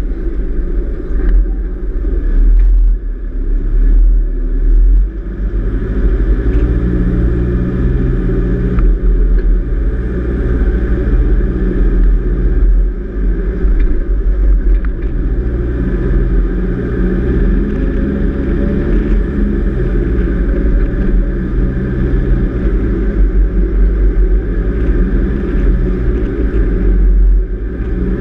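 A four-wheel-drive vehicle driving along beach sand: its engine runs steadily, the pitch drifting up and down a little with the throttle, over a heavy low rumble.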